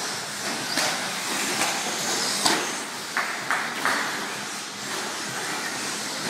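1/10-scale electric RC short-course trucks racing on a dirt track: a steady hiss of motors and tyres, with a sharp knock about two and a half seconds in and a few short bursts of noise just after.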